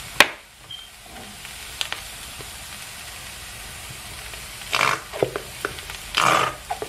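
Diced onion and spring onion sizzling gently in a frying pan. A sharp click comes near the start, then a plastic squeeze bottle of tomato ketchup sputters out two squirts about a second and a half apart.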